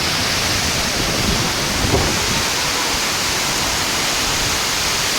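Strong cyclonic wind and heavy rain: a loud, steady rushing noise with no let-up, with a brief low thump about two seconds in.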